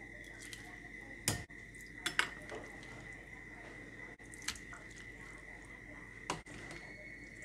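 Soup ladled from a stainless steel pot into a ceramic bowl: a handful of clinks and knocks of the ladle against pot and bowl, the loudest a little over a second in, with soft splashes of broth. A faint steady high tone runs underneath.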